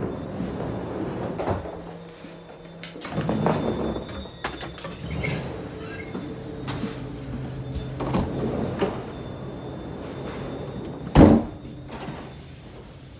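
Automatic sliding gangway doors of Bpm 61 / Apm 61 railway passenger coaches opening and closing, over a steady low hum in the coach. A single loud thud comes near the end.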